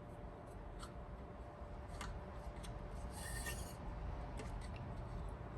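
Hands handling and threading a receiver's tuner dial cord around its pulleys: light clicks and rubbing, with a short scratchy rasp about three seconds in.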